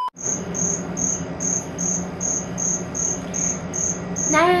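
Crickets chirping in an even rhythm, about three high chirps a second, over a low steady hum. The sound cuts out for a moment right at the start.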